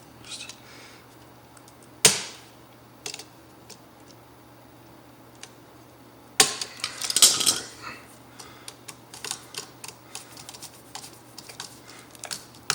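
Small clicks and clatter of hand tools and a metal-strapped electrical outlet being handled, with a sharp knock about two seconds in and a louder run of clattering a little past the middle.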